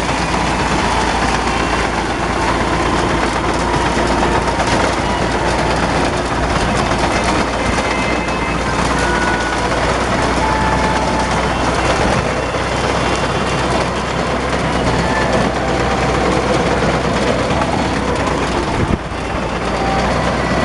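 Ursus 2812 tractor running under load while its wheat reaper cuts: a loud, steady mechanical noise with a low engine hum, briefly dipping near the end.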